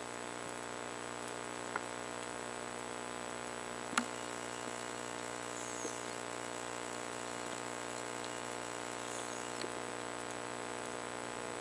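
Underwater ambience picked up by a camera in a waterproof housing: a steady hum with a few sharp clicks, the loudest about four seconds in.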